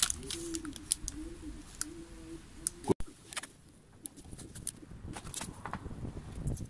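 A dove cooing in short repeated phrases over the first couple of seconds, with sparse faint crackles and ticks from insulating tape being pressed onto the rim of a glazed ceramic pot. A single sharp pop comes about three seconds in.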